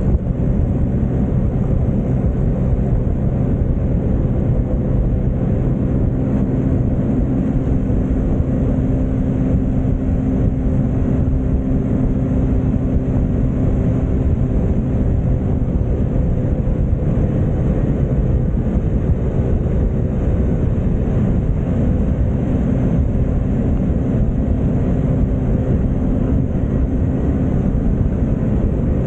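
Stock Yamaha Mio scooter's single-cylinder four-stroke engine running at a steady cruise, heard from the rider's seat over a constant rush of road and wind noise.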